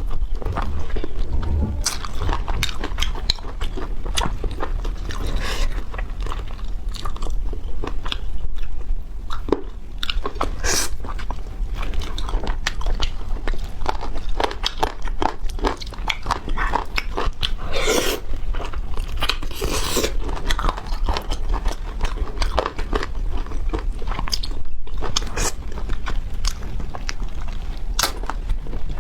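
ASMR eating sounds of someone eating chicken: repeated crunching bites and chewing at an irregular pace, close to the microphone.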